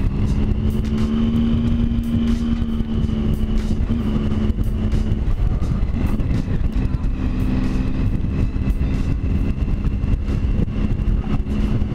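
Triumph Speed Triple 1050's inline three-cylinder engine running steadily at a cruise, heard over wind buffeting the microphone. About five seconds in the engine note drops away for a second and a half, then comes back.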